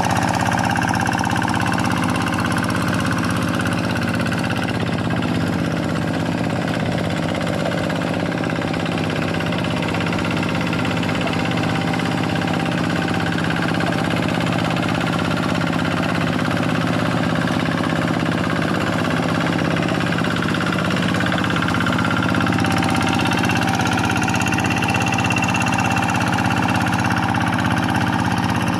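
Quick G1000 hand tractor's Kubota single-cylinder diesel engine running steadily while plowing a rice paddy.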